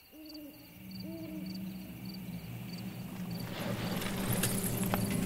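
Night forest ambience: crickets chirping and an owl hooting twice near the start. Under it a low steady hum comes in and grows louder, and the crickets fade out about three seconds in.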